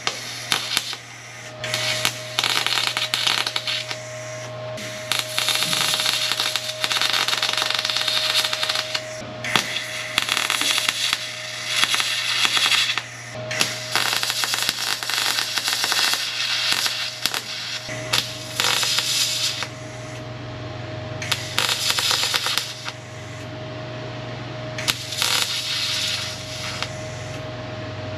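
MIG welder arc crackling and hissing in a string of bursts a second or two long with short pauses between, as a sheet-steel corner piece is welded into a car's quarter-panel support.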